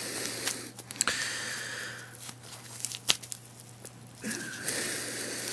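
Tight plastic wrapping being picked at and peeled off a lock cylinder by hand, crinkling and tearing in short stretches, with a couple of sharp clicks.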